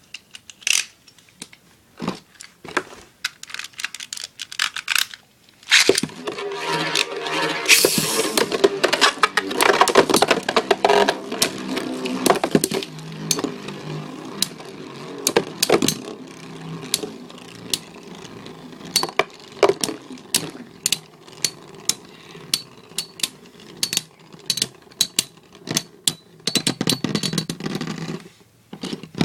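Beyblade spinning tops in a battle: scattered sharp clicks at first, then from about six seconds in a steady whirring of spinning tops with frequent sharp clacks as they strike each other, until the whirring stops shortly before the end.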